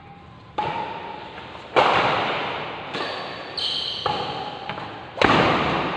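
Badminton rally: about six sharp racket strikes on the shuttlecock, roughly one a second, each echoing through the hall. Brief squeaks of shoes on the court come in between.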